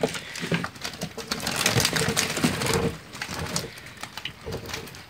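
Keep nets full of freshly caught tilapia being handled: irregular taps, slaps and rustles of the net mesh and wet fish, louder in the first three seconds.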